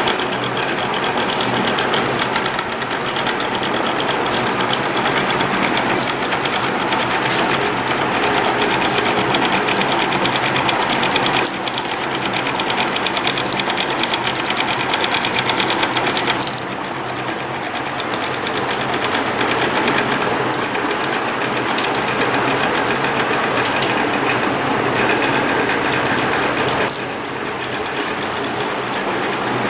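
Stepper motors of a homemade tabletop CNC pen plotter running continuously, a fast buzzing chatter as they drive the pencil carriage through a drawing. The loudness and tone shift a few times as the moves change, at about 11, 16 and 27 seconds in.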